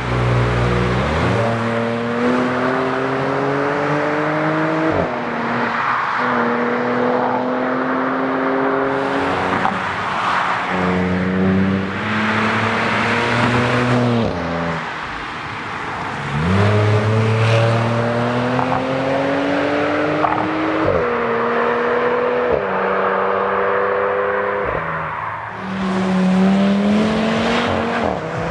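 A car's engine and exhaust pulling hard under acceleration. Its pitch climbs steadily and then drops sharply at each quick upshift, several times over.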